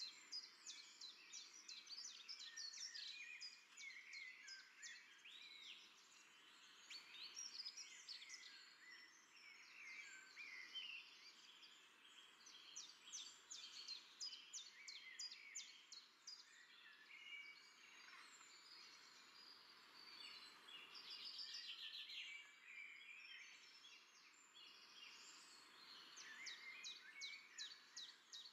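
Faint chorus of many birds chirping and twittering, with quick runs of repeated chirps, over a faint steady outdoor hiss.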